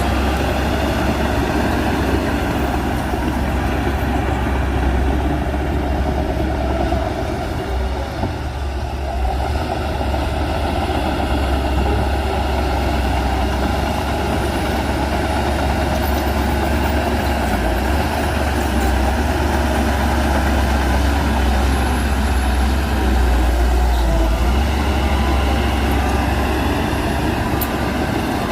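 Heavy diesel earthmoving machinery running steadily with a deep low rumble, easing slightly about eight seconds in.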